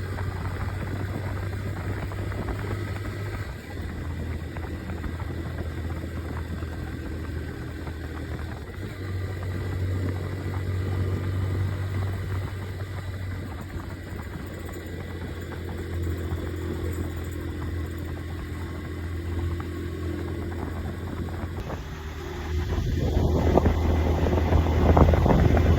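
Motorcycle engine running steadily as a low hum, louder for the last few seconds.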